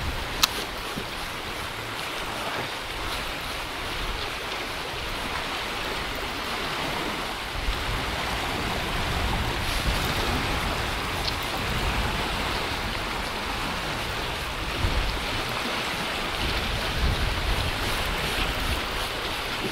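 Steady wind and water lapping around a boat, with low gusts buffeting the microphone now and then and a couple of faint clicks.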